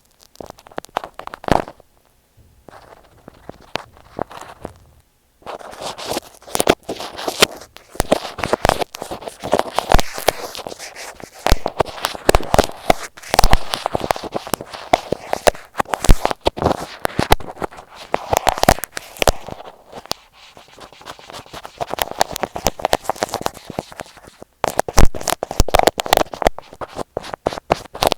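Close-up scratching and crackling on an Apple EarPods microphone through the tape that covers it, as the tape is poked and rubbed. Scattered clicks at first, then a dense, continuous crackle from about five seconds in, easing briefly near twenty seconds before picking up again.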